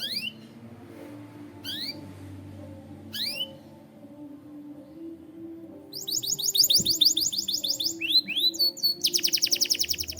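Canary singing: a few short rising chirps a second or so apart, then about six seconds in a fast rolling trill, two swooping notes, and a very rapid trill near the end. Soft background music plays underneath.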